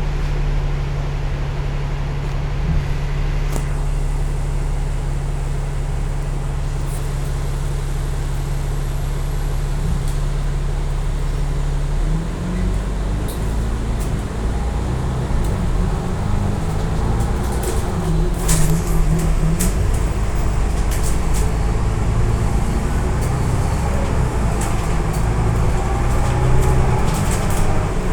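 Citybus 5539's engine running steadily at a low even note, then changing about twelve seconds in to an uneven, shifting note as the bus pulls away and runs on, with a few sharp clicks and rattles later on.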